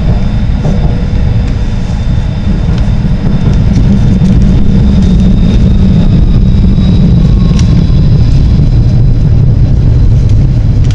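Tram running along the track: a loud, steady low rumble of wheels on rails and running gear, a little louder from about four seconds in, with a faint high whine held throughout.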